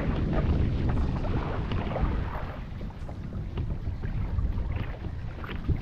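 Wind buffeting the microphone in a steady low rumble, with choppy water splashing against a kayak and a few faint ticks.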